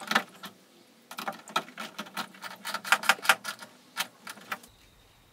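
Ratcheting driver clicking in short, irregular runs as the trim screws on a Mercedes Sprinter are run back in: a quick cluster of clicks at the start, then about a dozen more sharp clicks over the next few seconds.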